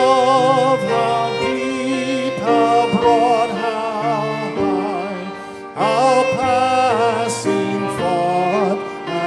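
Hymn music: held organ-like chords that change every second or so, with singing voices wavering over them.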